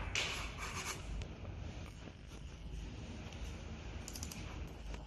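A burst of rubbing and scratching in the first second, like hands handling or sliding over a laptop, then quieter room background with a few faint clicks about four seconds in.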